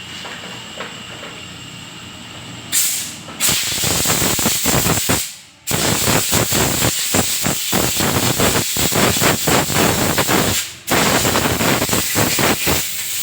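A pressurised spray hissing loudly in quick on-off bursts, at work on a motorcycle being serviced. It starts about three seconds in and pauses briefly twice.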